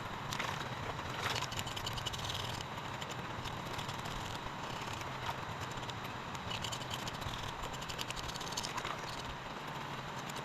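Steady rush of river water, with short, irregular scraping strokes of a knife working over a small fish, scaling and cleaning it.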